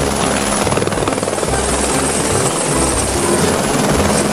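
A light helicopter in flight, its rotor making a fast, steady blade chop over the engine noise.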